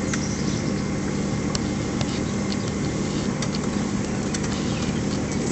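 An engine running steadily with an even hum, with a few light ticks on top.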